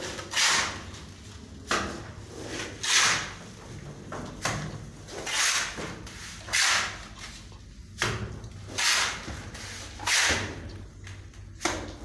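Mason's trowel scraping cement mortar in repeated strokes, a scrape every second or so, some starting with a sharp scratch: mortar being worked and spread onto a wall as plaster.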